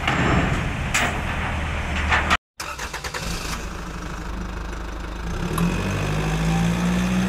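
Kobelco SK50 mini excavator's diesel engine running with a few clanks as it sits on the truck bed. After a brief cut, a steady engine sound that rises in pitch a little past halfway.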